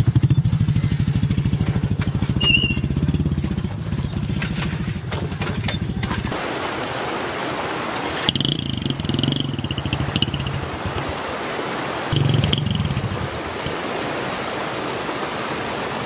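Small motorcycle engine labouring up a steep rutted dirt trail, with a rapid, even firing beat. About six seconds in it gives way to quieter motorcycles picking their way over a rocky track, their engines swelling briefly twice.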